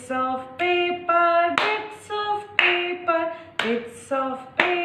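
Hands clapping a steady beat about once a second over a melody of held notes, the tune of a children's rhyme before its words begin.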